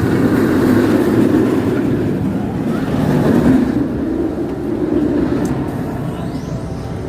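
Roller coaster train running along its steel track: a rough rumble that swells to a peak around the middle and then eases off as it moves away.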